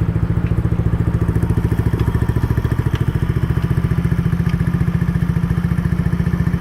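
Yamaha Cygnus X scooter's single-cylinder four-stroke engine idling steadily, with a few faint ticks over the even running. At 180,000 km it has developed an odd knocking, which the owner suspects may come from a muffler close to breaking or from the transmission.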